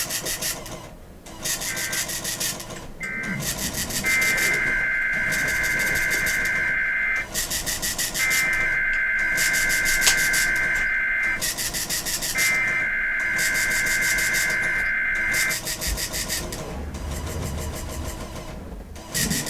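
Emergency Alert System digital data bursts: a harsh, buzzy two-tone screech sent three times, each burst about three seconds long with a second's gap, the length of a SAME header for a Required Weekly Test. Short bursts come just before, and a steady hiss of radio static runs between the bursts.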